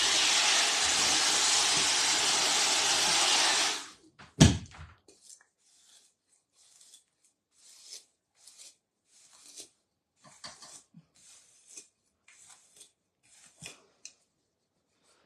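Handheld hair dryer blowing steadily, then switched off about four seconds in, followed by a sharp click. Faint scattered handling sounds follow.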